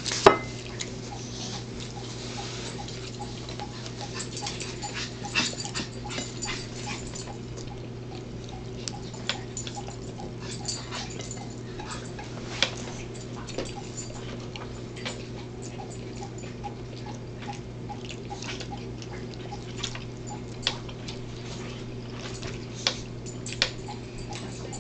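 Scattered mouth clicks and smacks of people eating corn dogs close to the microphone, over a steady low electrical hum.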